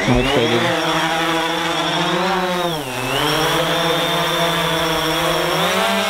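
Quadcopter drone's motors and propellers spinning up from rest and lifting off, a loud steady buzzing whine. It rises in pitch at the start, dips briefly about halfway through, then rises again.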